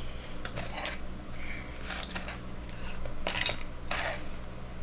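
Hands handling craft supplies on a tabletop while a box of soft pastels is pulled over: scattered clicks and rustles, with one sharp click about two seconds in.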